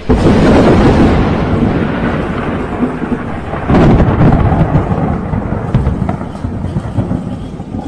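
Thunder: a loud peal breaks right at the start and rumbles on, a second loud peal comes about four seconds in, and the rumbling slowly fades.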